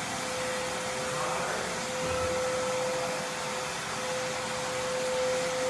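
A machine running steadily: an even whirring noise with a constant hum at one pitch.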